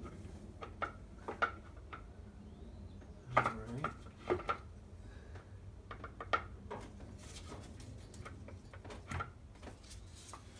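Irregular light metallic clinks and clicks of an Optispark optical distributor being worked into place by hand on an LT1 V8, in a tight fit by the crank pulley, with a cluster of several knocks about a third of the way in.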